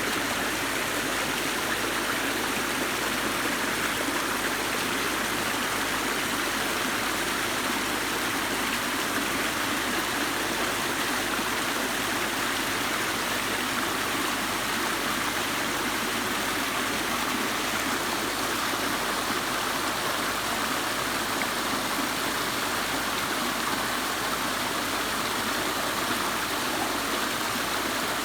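Water pouring steadily over an artificial rock and sandstone waterfall into a whitewater stream, an even rushing splash.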